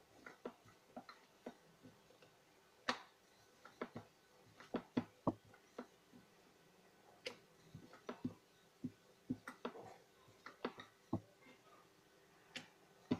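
Wooden rolling pin clicking and knocking against a wooden rolling board as paratha dough is rolled out into a round, in irregular light taps about two a second.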